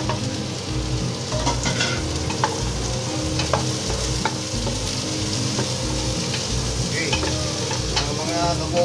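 Chopped garlic, onion and ginger sizzling in hot oil in an aluminium pressure-cooker pot, stirred with a wooden spoon that scrapes and taps against the metal now and then: aromatics being sautéed just after the garlic goes in.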